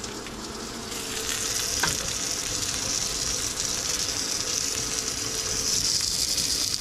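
Spruce grouse breast meat sizzling in oil in a nonstick frying pan: a steady sizzle that grows stronger about a second in, with a single light knock near two seconds.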